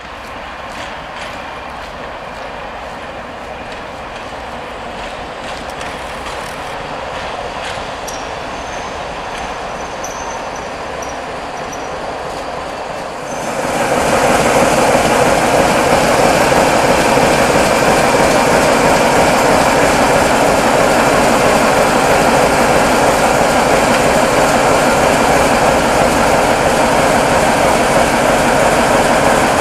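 CFR class 80 diesel-hydraulic shunting locomotive (LDH) running, at first moderately loud with a faint high squeal for a few seconds. About halfway through it becomes much louder and steady as the locomotive moves past close by.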